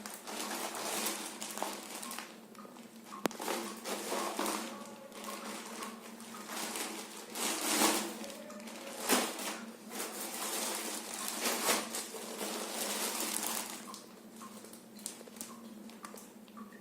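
Plastic packaging crinkling and rustling in irregular bursts as a parcel is unwrapped by hand. A faint steady hum sits underneath.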